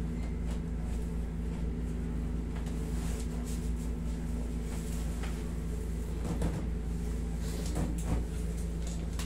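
Steady low hum of a room air conditioner, with a few soft knocks and rustles of clothing and the padded massage table as hands press on a man's lower back and hips, most of them in the last few seconds.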